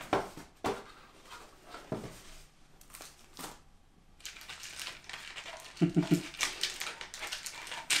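Unboxing handling sounds: a few light knocks as small plastic parts are set down on the table, then packaging rustling and crinkling through the last few seconds. A brief voice-like sound about six seconds in.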